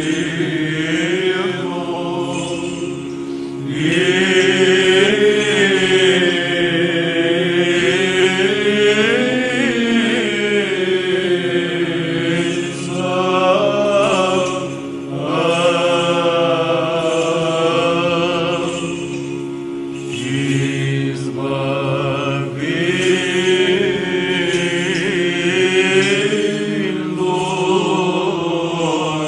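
Orthodox Byzantine church chant: voices sing slow, drawn-out melodic phrases over a steady held drone (ison), swelling louder in several long phrases.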